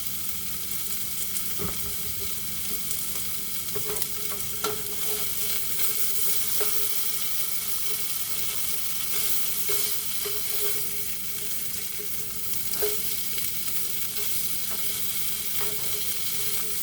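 Chicken with red chile sizzling in a skillet, a steady frying hiss with scattered small pops and clicks.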